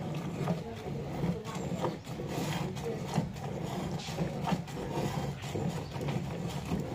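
A cow being milked by hand: rhythmic squirts of milk hitting a nearly full metal pail of frothy milk, about two a second.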